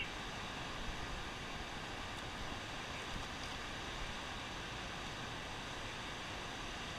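Steady rushing of water released through a dam, pouring into the tailwater as an even, unbroken noise.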